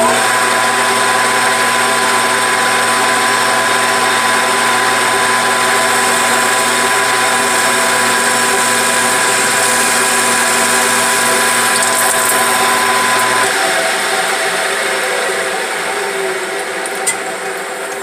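Metal lathe running with a parting blade cutting through the aluminium shell of a car air-conditioning receiver dryer: a steady machine whine with a hum. About 13 seconds in the hum drops out and the sound grows gradually quieter.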